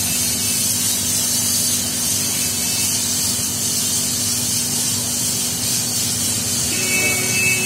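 A burning motorcycle, its petrol fire giving a steady hiss. A steady high two-note tone comes in near the end.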